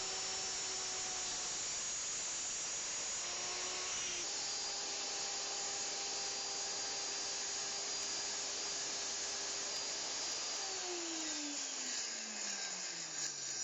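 Electric power tool motor running at a steady speed, then switched off and winding down, its pitch falling over the last few seconds.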